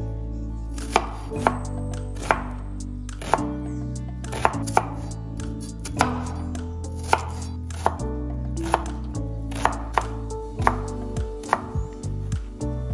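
Kitchen knife chopping a red onion on a wooden cutting board: sharp, irregular knife strikes against the wood, about one or two a second, coming quicker near the end.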